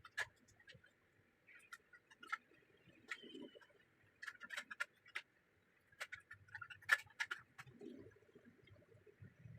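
Irregular light clicks and taps of small tools and parts being handled during work on a projector, with a few soft low knocks.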